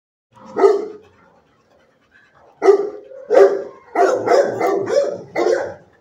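A dog barking: a single bark, a pause, then a string of barks, the last few in quick succession.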